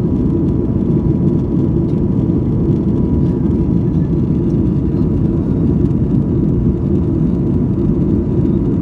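Boeing 737-800 cabin noise heard at a window seat in the climb after takeoff: a steady low rumble of CFM56-7B engines and airflow, with a faint steady high tone above it.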